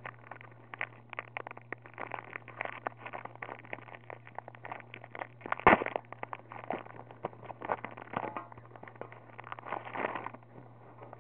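Foil wrapper of a Pokémon card booster pack crinkling and crackling as it is handled and opened, in dense irregular crackles with one louder crackle about halfway through, over a low steady hum.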